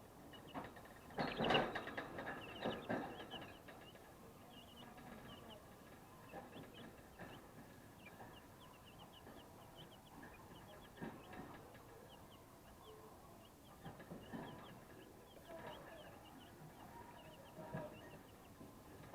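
A flock of 12-day-old broiler chicks peeping, many short high chirps overlapping throughout. A few louder knocks or rustles stand out, the loudest about a second and a half in.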